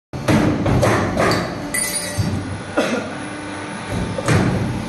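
8 mm steel-wire J-hook making machine working, with a run of sharp knocks and thuds: four close together in the first two seconds, then two more spaced further apart.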